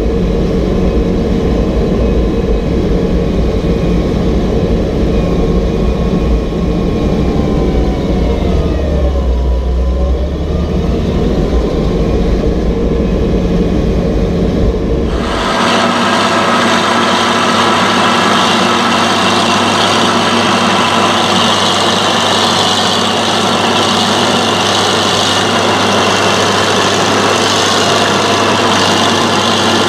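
Fiat Allis AD14-C crawler dozer's diesel engine running hard at full power, pulling a heavy levelling blade, heard from inside the cab with a deep rumble. About a third of the way in its pitch sags and then recovers as the engine lugs under the load. About halfway through the sound cuts to the same dozer heard from outside, brighter and with far less low rumble.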